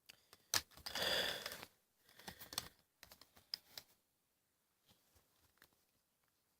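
Plastic toy sonic screwdrivers being handled: scattered clicks and clatter, with a louder scraping rustle about a second in.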